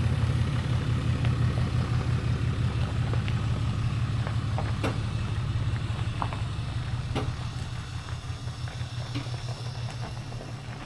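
A low, steady engine rumble that slowly fades, with a few faint clicks over it.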